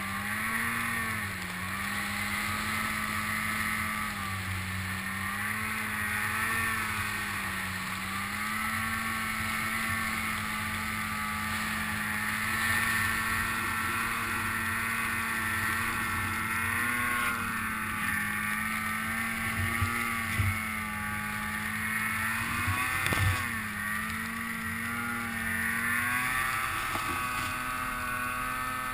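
Snowmobile engine running steadily under load through powder, its pitch wavering up and down with the throttle. There is a quick dip and rise in revs about three quarters of the way through.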